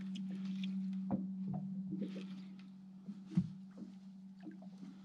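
A steady low hum with scattered light clicks and taps and one sharper knock a little past halfway; the hum gets somewhat quieter after the halfway point.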